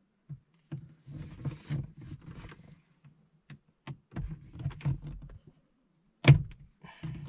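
Hands working at plastic interior trim around a car's glovebox lamp, trying to pry it loose: scattered rustling, small clicks and knocks, with one loud sharp knock about six seconds in.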